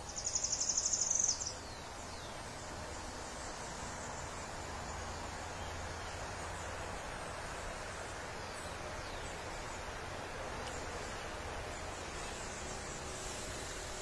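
Natural forest ambience: a steady background hiss with faint insect noise. It opens with a loud, high-pitched, rapidly pulsing trill that stops after about a second and a half.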